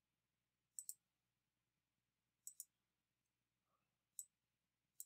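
Faint computer mouse clicks against near silence: a quick pair a little under a second in, another pair about two and a half seconds in, then single clicks near the end.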